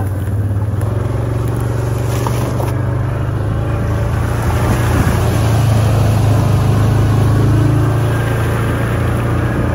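Side-by-side UTV's engine running steadily while driving, heard from the seat: a low, even drone that grows a little louder about halfway through.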